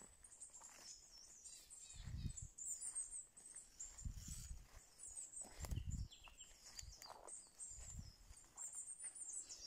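Small birds chirping high and thin, with a few soft, low thuds of footsteps on the forest floor.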